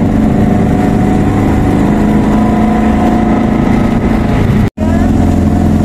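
Car engine running steadily while driving slowly, with a low drone heard from inside the car. The sound cuts out completely for a split second near the end.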